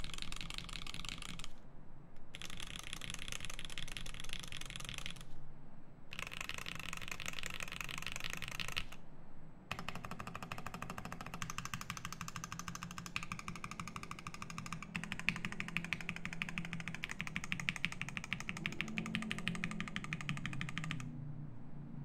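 Fast typing on a Klippe T R4 mechanical keyboard with Mauve switches, an aluminium plate and GMK Botanical keycaps: a dense stream of keystroke clacks. It comes in three short stretches broken by brief pauses, then one long unbroken run that stops about a second before the end.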